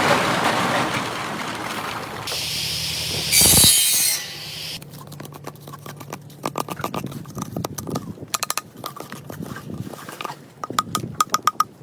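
Handwork on calabash gourds for mates in a workshop, heard as a run of short cuts. First comes a steady rushing noise, then a brief loud hiss about three and a half seconds in, then irregular sharp clicks and taps, ending in a quick run of clicks.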